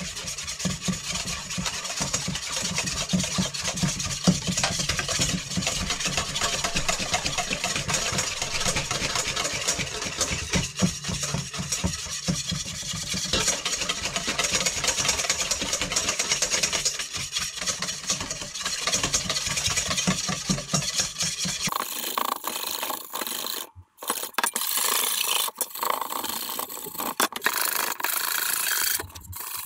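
Wire whisk beating an oil, vinegar and mustard dressing in a stainless steel bowl: a fast, steady scraping and rattling of the wires against the metal, which stops briefly twice in the last few seconds.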